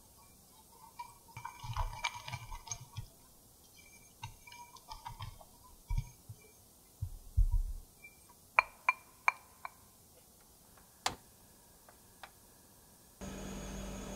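A silicone-coated whisk stirring dry cocoa powder and sugar in a small glass bowl: soft scraping and rustling, then a few sharp taps that ring on the glass. Near the end a steady hiss starts suddenly: a gas stove burner lit at medium flame.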